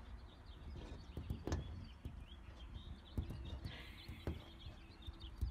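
Dog licking a glass door: about four soft knocks of its tongue and muzzle against the pane, with faint high chirps throughout.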